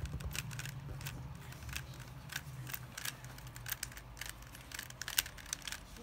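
A plastic 3x3 Rubik's cube being turned by hand: a run of irregular clicks and clacks as its layers rotate, with one sharper click about five seconds in.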